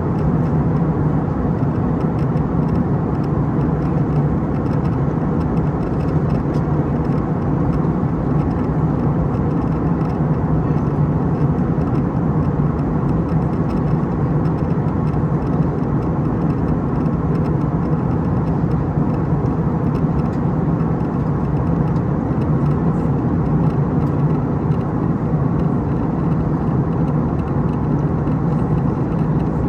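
Steady cabin noise inside an Airbus A319 airliner in flight on approach: a constant low drone from the engines under a rush of air past the fuselage.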